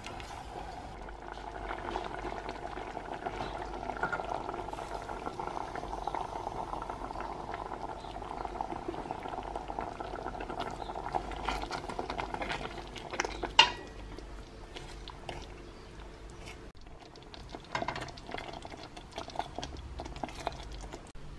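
Chopped tomatoes cooking down into jam, simmering and bubbling in a steel pot while stirred with a wooden spoon. There is one sharp knock about two-thirds of the way through and a few scattered clicks near the end.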